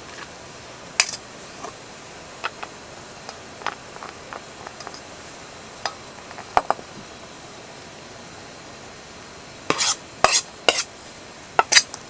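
Utensils clinking and scraping against a cooking pot as kalguksu noodles are stirred into a shabu-shabu broth: scattered light clicks, then a quick run of louder clinks near the end.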